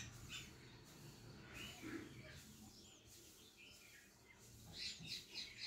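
Small birds chirping faintly, with short high chirps here and there and a quick run of chirps, about five a second, near the end.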